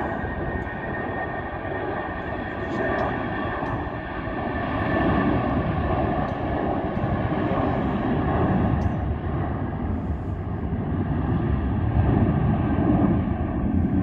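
British Airways jet airliner taking off, its engines at takeoff power: a steady jet roar that grows louder about five seconds in and stays loud as the plane rolls and lifts off.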